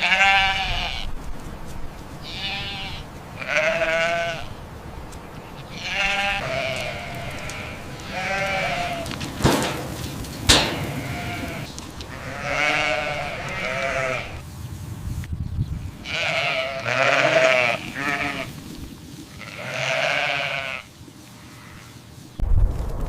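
Sheep bleating, one quavering bleat every two to three seconds, about eight in all, with two sharp knocks around ten seconds in.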